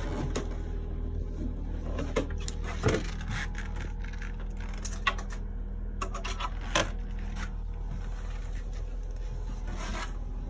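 Hinged wooden stairs being lifted open by hand, a few separate knocks and scrapes of wood, over a steady low hum.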